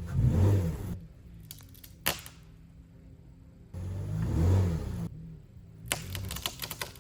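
Greenworks electric chainsaw run in two short bursts, its motor pitch rising and falling, with sharp knocks between them.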